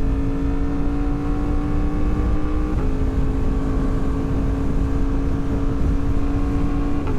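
Yamaha MT-10 crossplane inline-four with a RaceFit Growler X exhaust running steadily under way, with wind rush. The engine note drops a little about three seconds in and again near the end.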